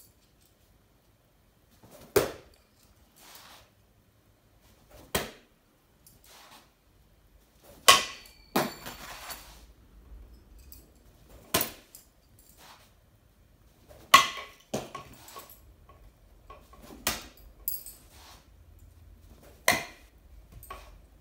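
Metal bo-shuriken hitting a hanging tube target: about seven sharp clacks, two to three seconds apart. Most spikes glance off, and some hits are followed by a brief metallic rattle and ringing as the spike is knocked away. The last hit, near the end, sticks.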